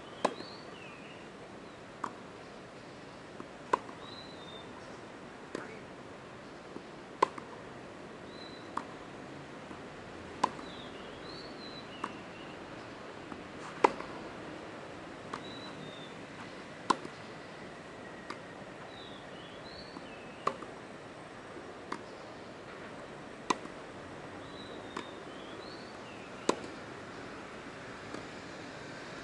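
Tennis rally: racquets strike the ball back and forth with a sharp pock about every one and a half seconds, the near player's hits louder than the far player's. Short high bird chirps come and go in between.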